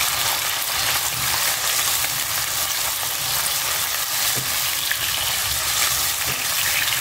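Squid rings frying in oil in a nonstick wok: a steady sizzle, with a spatula stirring through them and knocking softly against the pan now and then. The squid are giving off a lot of water into the oil as they fry.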